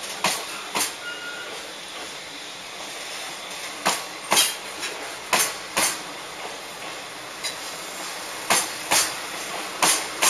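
Container flatcars of a long freight train rolling past, their steel wheels clacking over the rail joints, the clicks coming in pairs about half a second apart as each bogie's two axles cross, over a steady rolling rush.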